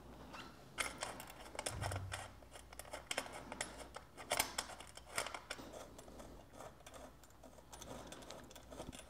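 Scattered light clicks and taps of a chrome headlight housing and its mounting hardware being handled and fitted onto its bracket, with a soft low bump about two seconds in.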